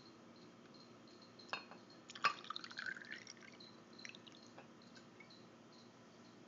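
Everclear pouring from its glass bottle into a shot glass, the pour rising in pitch as the glass fills. It opens with a light clink of glass on glass about two seconds in, and a few faint clinks follow.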